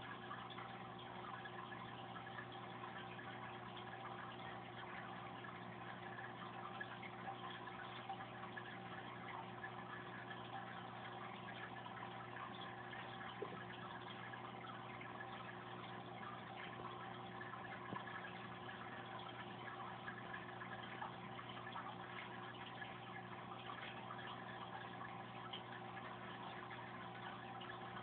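Aquarium pump running with a steady hum, over water trickling and bubbling in the tank.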